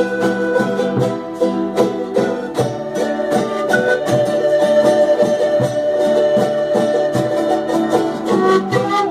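Music: fast, even strumming on plucked string instruments, with a held melody note through the middle.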